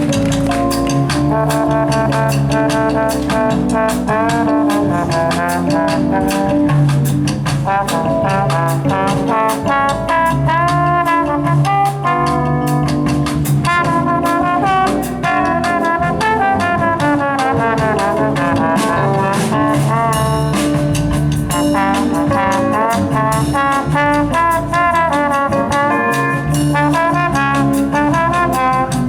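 Brass band playing jazz live: trumpet and trombone carry a moving melody over a steady bass line and a drum kit.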